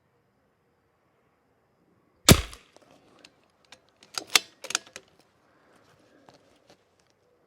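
A single .22 LR rifle shot from a RimX bolt-action rifle firing match ammunition, about two seconds in. About two seconds later comes a quick run of sharp metallic clicks as the bolt is worked to eject the case and chamber the next round.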